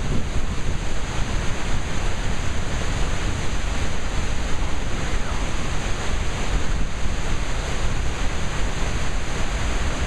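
Steady rush of the Skógafoss waterfall plunging into its pool, heard close up from its base, with a heavy low rumble of wind and spray buffeting the microphone.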